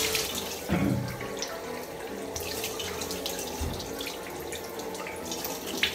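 Water running from a bathroom tap into the sink, with hands splashing it onto a face a few times.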